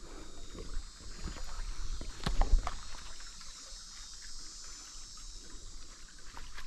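Close handling noises as a just-landed Mayan cichlid is dealt with: scattered small knocks and rustles with light water sounds, and one louder thump about two seconds in.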